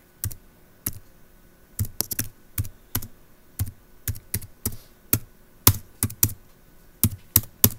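Typing on a computer keyboard: irregular, sharp key clicks as a short phrase is typed into a browser search bar.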